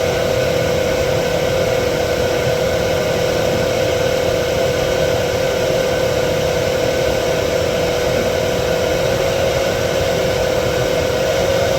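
Inline duct fan running together with two exhaust fans and an intake fan: a steady rush of air with a steady hum. The inline fan's speed is being set automatically by a temperature controller that reads the sensors as warm.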